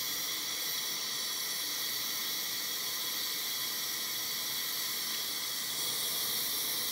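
Bathroom sink tap running into a balloon stretched over its spout, filling it with water: a steady hiss.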